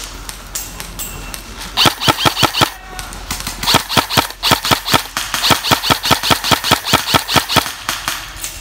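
Airsoft gun firing rapid shots: a short fast run of about eight, then a longer string of about twenty at roughly five a second.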